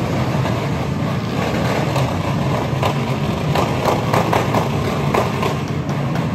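Steady loud din of a motorcycle rally crowd with motorcycle engines running, and a cluster of short sharp sounds in the middle.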